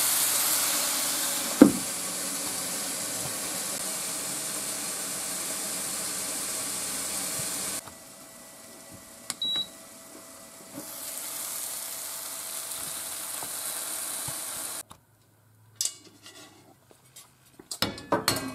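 Green beans sizzling in oil on an electric griddle plate, with a single sharp clank of the glass lid going on about a second and a half in. The sizzle turns quieter for a few seconds, during which the griddle gives a short high beep, then runs on again. Near the end, metal clicks and clatter of the griddle's cooking plate being lifted and swapped.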